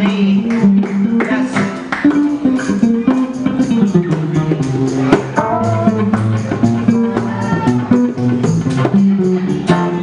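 Live band playing a song: strummed acoustic guitar and electric guitar with a shaken tambourine keeping the beat, and a woman singing over them.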